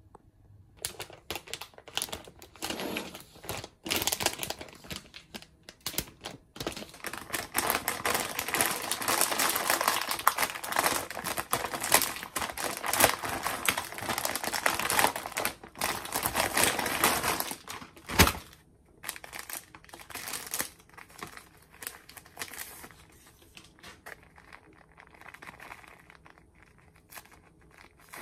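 Foil-lined coffee bag crinkling and rustling as it is handled and opened, with several seconds of dense crackling and a sharp click about two-thirds of the way in. Quieter rustling of a drip-coffee packet follows near the end.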